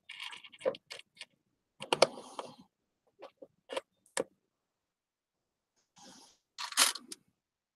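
Small metal cog charms being handled and placed on a paper craft piece: scattered light clicks and clinks with short rustles, and a louder rustle near the end.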